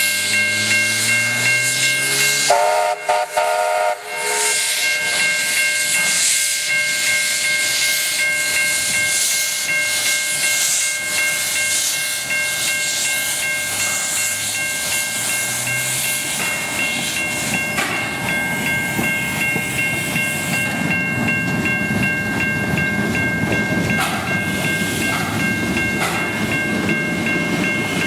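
Steam locomotive hissing loudly as it pulls away, with steam blowing from its cylinder drain cocks, and a short whistle blast about three seconds in. Steady high ringing from the level-crossing warning bells runs under it, and in the second half the wheels and carriages rumble past.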